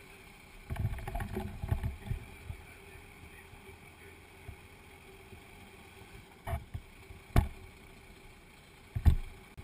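Fire engine driving, heard from a camera mounted outside the cab: a steady engine and road hum, with wind rumbling on the microphone in gusts during the first two seconds and a few sharp knocks in the second half.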